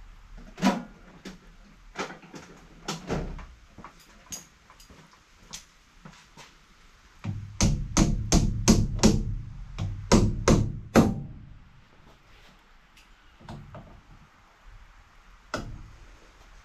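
Sharp knocks and taps from hand tools at work: a few scattered ones, then a quick run of about eight hard blows over a low rumble between seven and eleven seconds in. These come from working on crusty battery terminals to get a good connection.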